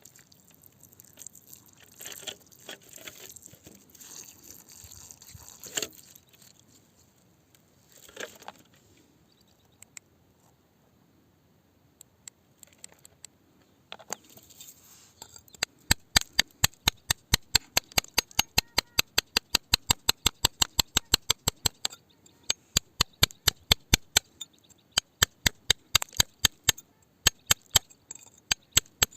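Hand tool tapping on rock: at first scattered light scrapes and clinks, then, from about halfway through, a steady run of sharp taps about three or four a second.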